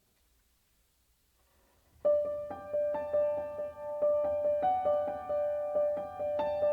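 Near silence, then about two seconds in a piano starts playing: one note repeated about four times a second under a slowly moving melody.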